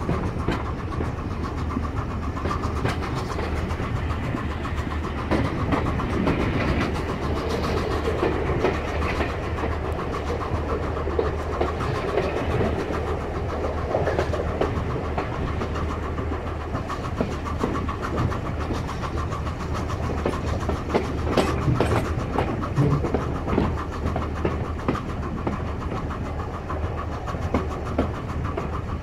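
Passenger coach of a heritage train running along the track: a steady rumble of wheels on rails, with a few sharper clicks and knocks, heard from the coach's window.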